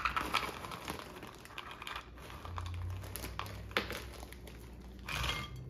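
A plastic freezer bag of pecans crinkling as nuts are handled and scooped out, with scattered light clicks. A louder rustle comes near the end.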